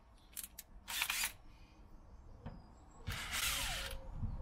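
Cordless drill with a cone cutter: a few short clicks of the tool being handled and set in place, then about three seconds in a brief burst of the drill running, its whine falling as it slows.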